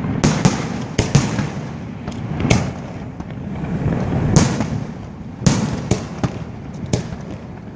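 Fireworks display: shells bursting overhead in about ten sharp, irregularly spaced bangs over a continuous low rumble of further bursts and echoes.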